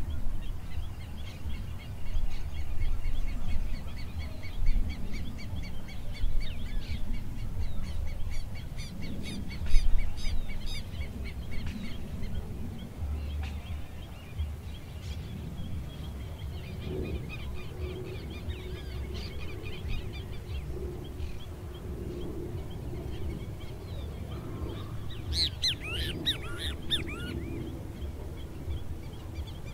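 Open-country ambience: birds calling and chirping over a steady low rumble, with a loud cluster of harsh bird calls near the end.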